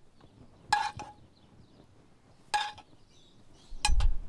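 Metal spoon clinking against the dishes while serving cubes of seared tuna: three sharp clinks with a short ring, the last one doubled. A low rumble starts near the end.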